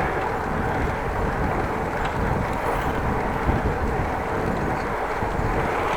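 Steady rushing wind and road noise of a bicycle ride, with wind on the microphone.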